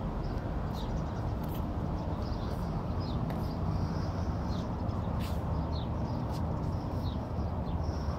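Small birds chirping in short, falling notes, repeated every second or so, over a steady low background rumble.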